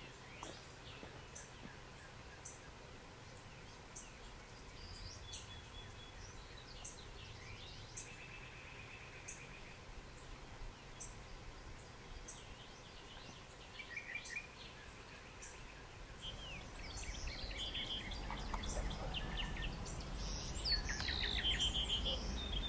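Several wild birds chirping and singing, with a short high note repeating about once a second among varied trills. A low rumble builds in the last few seconds.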